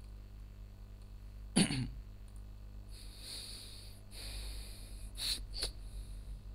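A person coughs once into a microphone about one and a half seconds in, followed by a couple of breathy hisses and two short clicks near the end, over a steady low electrical hum.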